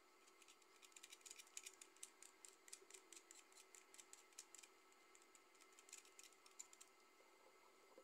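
Faint, quick, irregular clicking and scraping from a utility knife blade working at the copper wire end of a jumper-cable clamp. It comes in two runs, the first about four seconds long and the second about a second long, with a pause between.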